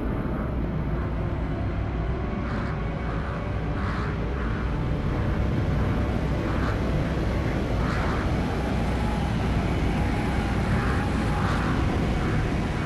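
Steady low rumbling rush of air around a skydiver in freefall from the stratosphere, picked up by the camera on his pressure suit.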